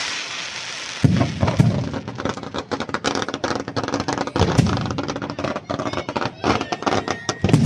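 Fireworks display: a rising hiss for about a second, then a dense, rapid barrage of bangs and crackling shell bursts, with a loud bang near the end.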